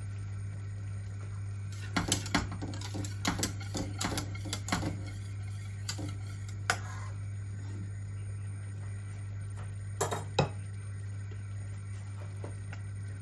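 Wire whisk clinking and knocking against the sides of a stainless steel pot of maize porridge, a quick run of metal clicks, then two sharper clanks later on. A steady low hum lies underneath.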